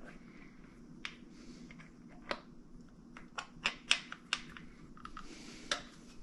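Scattered sharp clicks and light taps of small metal engine parts and tools being handled, with a quick run of them between about three and a half and four and a half seconds in.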